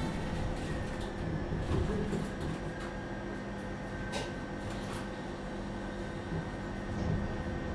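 Inside a Tatra T4DC tram: a steady low rumble and electrical hum from the car, with a few light clicks about four and five seconds in.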